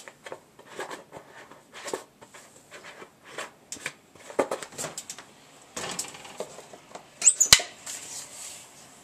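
Kitchen handling sounds: irregular light clicks and knocks of a pot and containers being handled, with a sharp clank about seven and a half seconds in.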